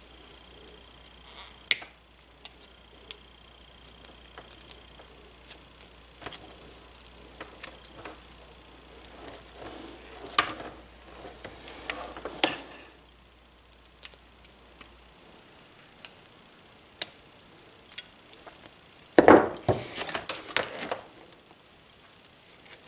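Hand tools and wire being handled while a crimp terminal on a charger cable is reworked: scattered light clicks and taps, stretches of rustling, and a louder bout of handling near the end.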